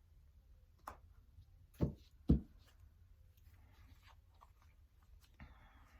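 Tarot cards being handled on a table: three soft taps about one to two and a half seconds in, then light rustling.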